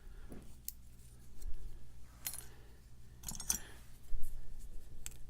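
Small metal lock parts being handled: a few light metallic clicks and clinks with brief ringing, and a duller knock about four seconds in.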